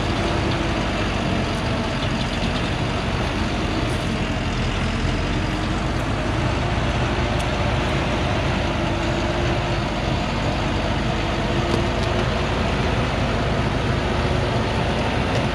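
Heavily loaded diesel truck climbing a dirt slope in low gear, its engine running steadily under heavy load.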